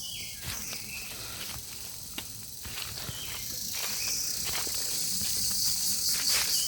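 Insect chorus making a high-pitched hiss that swells about four seconds in and pulses evenly several times a second, with scattered clicks and short chirps.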